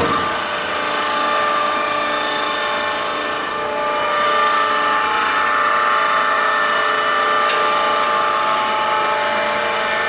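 A 40 x 160 Samstar engine lathe starts suddenly and runs steadily, its gears giving a whine made of several steady tones.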